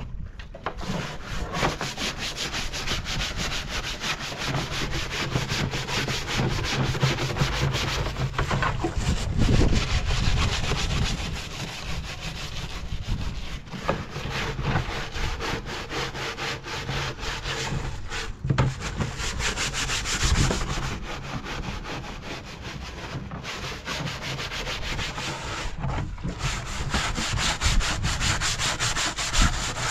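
Wood being worked with a hand tool: rapid, rhythmic scraping strokes, like sawing or rasping, that pause briefly a few times.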